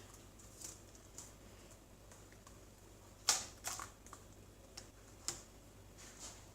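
Scattered light plastic clicks and taps from handling a replacement laptop keyboard and its ribbon cable connector, the sharpest click about three seconds in.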